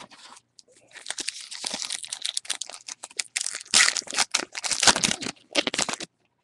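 A 2013 Topps Gypsy Queen baseball card pack being torn open by hand: its wrapper crinkles and tears in a run of crackling, loudest about four and five seconds in, and stops abruptly about six seconds in.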